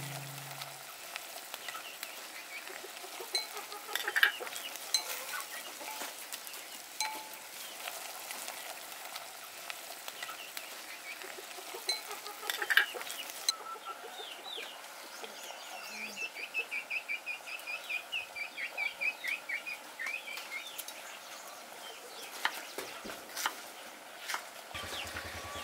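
Chickens clucking over a soft, steady simmer-and-fire hiss, with a quick run of high calls for about five seconds midway. Chopsticks tap and scrape in a clay pot now and then, and near the end a knife chops on a wooden board.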